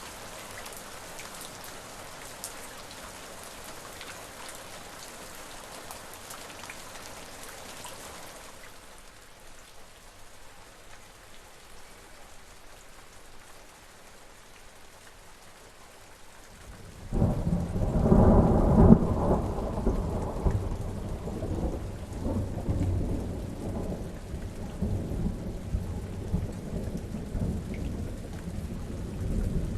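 Steady rain falling, thinning to a softer patter about a third of the way in. A little past halfway a loud clap of thunder breaks in and rolls on in long, fading rumbles.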